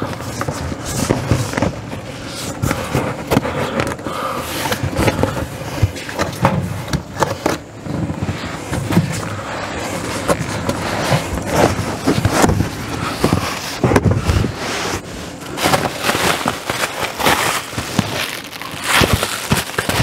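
Plastic underbelly panel of a fifth-wheel trailer being pulled down by hand, a run of irregular cracks and snaps as it flexes and bends.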